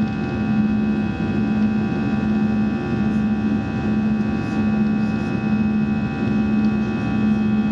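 Airbus A320 cabin noise in flight: a steady engine and airflow drone, with a low hum that swells and fades about once a second.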